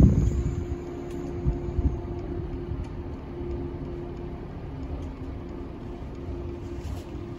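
Steady electrical hum from a Shinano Railway 115-series electric train standing at the platform, with wind rumbling on the microphone.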